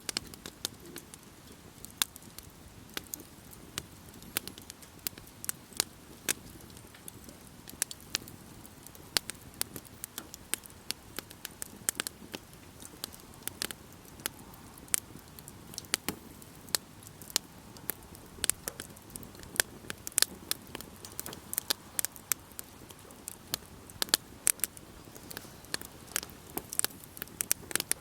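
Wood fire crackling: irregular sharp pops and snaps, several a second, over a steady low rush of the flames.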